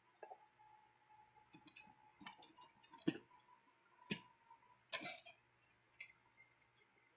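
Hard plastic parts of a Transformers Nova Prime action figure clicking and tapping as they are handled and moved, a string of short sharp clicks with the loudest about three seconds in.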